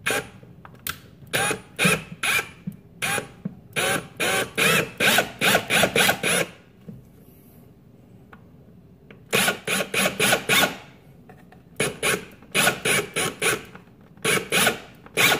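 Ridgid brushless cordless drill run in many short trigger bursts, a few a second, as it bores a hole up through a wooden cabinet bottom. The bursts pause for about three seconds after the first six seconds, then start again in short groups.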